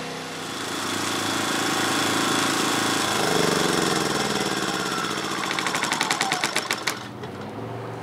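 Wen 56200i four-stroke inverter generator running, its engine speed shifting and then turning into a fast, even chugging before it cuts out about seven seconds in as it is switched off. A quieter steady hum remains.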